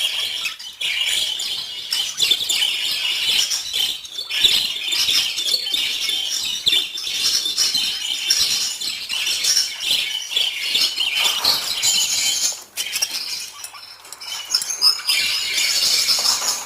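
Budgies chirping and chattering together: a dense, busy high twitter with quick clicks. It thins out for a moment about three-quarters of the way through, then picks up again.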